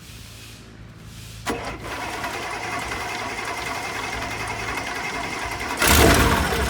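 Rotec R2800 seven-cylinder radial engine being started: about one and a half seconds in the starter begins turning it over with a steady rapid clatter, and near the end the engine catches and fires, the sound jumping louder and deeper.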